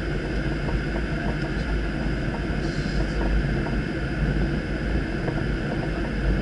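Steady flight-deck noise of an airliner on approach: a deep rumble of airflow and engines, with faint steady high tones above it.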